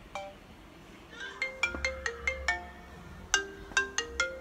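A phone's ringtone-style melody of quick, marimba-like struck notes, starting about a second in, while a call is waiting to be answered.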